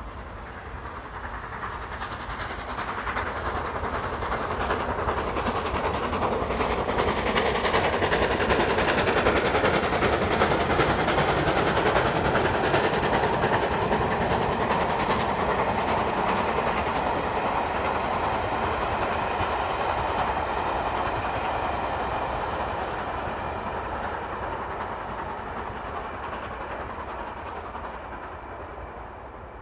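GWR Castle-class 4-6-0 steam locomotive No. 7029 Clun Castle working hard with a passenger train. Its exhaust beats and the rolling coaches grow louder to a peak about ten seconds in, then fade away as the train passes.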